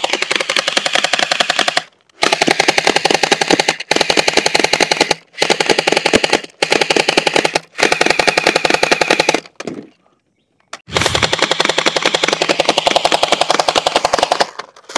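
Electric gel blaster toy machine gun firing on full auto in repeated bursts of rapid shots, each burst one to four seconds long, with a pause of about a second past the middle.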